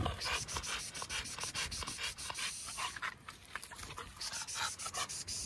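American bully dog panting rapidly with its mouth wide open, out of breath from jumping exercise.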